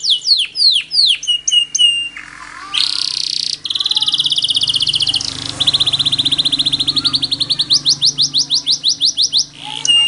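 Yellow domestic canary singing a long varied song: quick runs of repeated notes, the first ones sweeping down and slowing, a short buzzy phrase, then a long rapid trill of rising notes in the second half.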